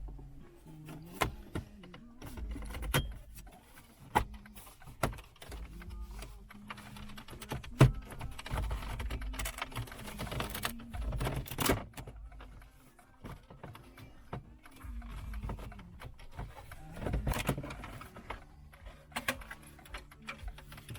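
Irregular clicks, knocks and rattling from hands working on a car's dashboard trim while removing the radio bezel, with a longer stretch of rustling and scraping about halfway through.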